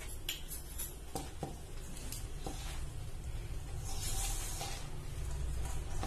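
A hand mixing sliced onions with gram flour and rice flour in a steel bowl, rustling and squishing. There are a few light clicks in the first couple of seconds and a louder rustle about four seconds in.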